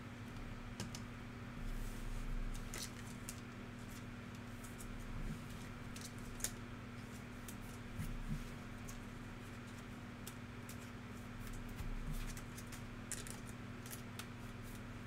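Sports trading cards being handled and flipped through: scattered light clicks and soft rustles at irregular intervals, over a steady low hum.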